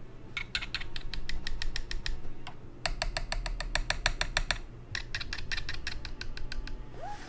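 Typing on a Tecware Phantom Elite mechanical keyboard fitted with Kailh Speed Bronze clicky switches: quick runs of sharp key clicks in three bursts, with short pauses between them.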